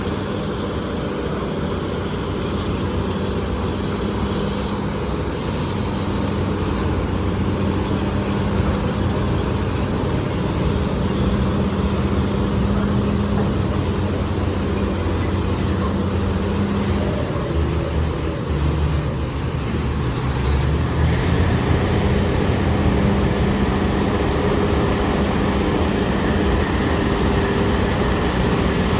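BEML BD355 crawler bulldozer's diesel engine running under load, a steady heavy drone whose note shifts for a few seconds a little past halfway before settling again.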